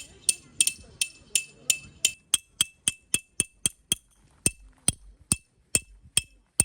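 Hammer striking a metal tent peg over and over, about three sharp ringing clinks a second, slowing slightly near the end.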